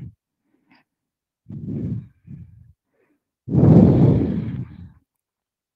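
A woman's audible breathing during a slow stretch: a short breath in two parts about a second and a half in, then a long, deep sighing exhale about three and a half seconds in.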